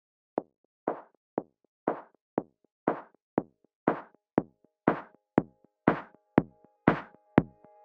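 Background electronic music: a drum-machine beat, about two hits a second, alternating a short kick with a longer snare-like hit and building in loudness, with sustained synth chords coming in near the end.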